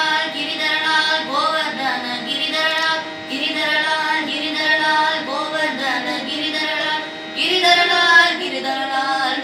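A boy singing a Carnatic devotional song in raga Sindhubhairavi, in long melodic phrases with brief breaks for breath, over a steady drone.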